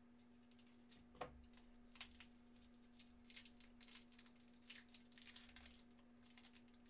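Plastic snack-bar wrapper being torn open and crinkled: a faint, irregular run of crackles and rustles.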